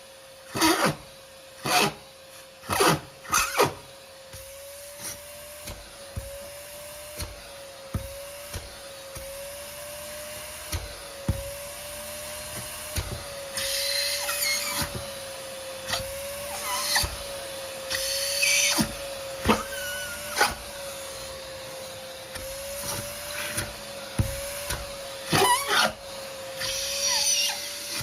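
Vacuum cleaner running, its motor whine steady but wavering slightly in pitch. Several loud sharp clicks and knocks come in the first few seconds, then scattered clicks and short bursts of hissing crackle as the nozzle picks up dirt.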